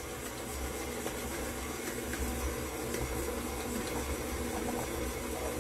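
Tilt-head stand mixer running steadily at low speed, its paddle beater creaming margarine and sugar in a metal bowl, with an even motor hum.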